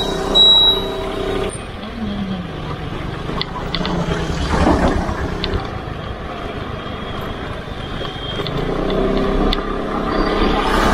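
Suzuki scooter's small single-cylinder engine running under way, its note falling and rising as the speed changes.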